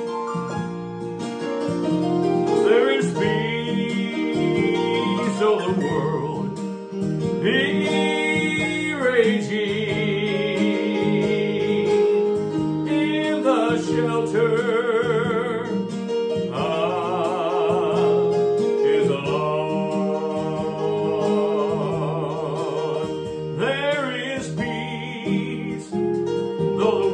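Gospel song: a singer holds long notes with wide vibrato over acoustic guitar accompaniment.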